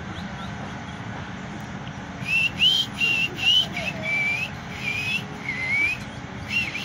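Golinho (white-throated seedeater) giving a run of clear whistled notes, some rising, some falling and some arched, about two a second, starting a couple of seconds in.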